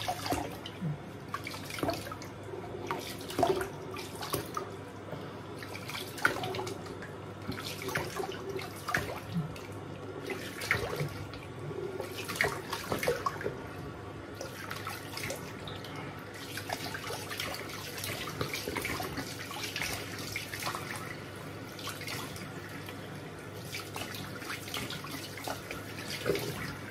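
Tap running into a bathroom sink, with frequent irregular splashes as a man rinses his face with water cupped in his hands.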